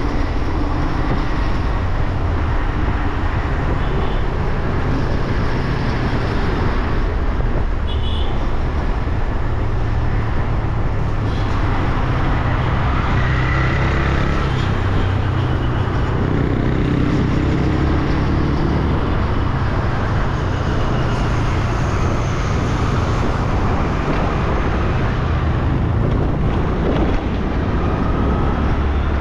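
Wind rushing on the microphone of a moving motor scooter, steady and loud, over the scooter's engine and the noise of surrounding city traffic.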